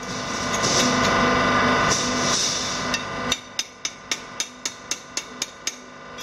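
A machine whirs steadily for the first half, then cuts out. A blacksmith's hand hammer then strikes a parang blade on a small steel stake anvil, about ten quick blows at roughly four a second, ringing sharply.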